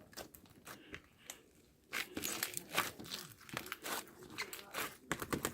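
Close-up handling noises from slime or its packaging: a few scattered clicks, then from about two seconds in a dense run of crackling, clicking and crinkling.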